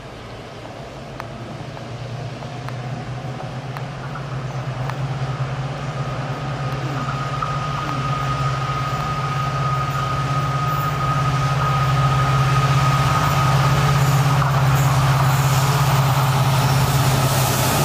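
WDP 4D diesel-electric locomotive's engine drumming steadily as it approaches hauling a passenger train, growing louder throughout. A high steady whine sounds over it for several seconds midway.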